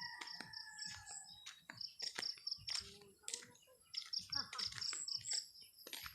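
Small birds chirping: several runs of rapid, high, evenly repeated notes, with scattered sharp clicks between them.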